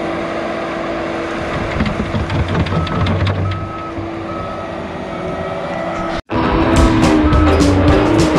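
John Deere compact track loader's diesel engine running steadily while it dumps a bucket of dirt, with dirt spilling off the bucket, then its backup alarm beeping about twice a second. After a sudden break about six seconds in, music plays over the machine.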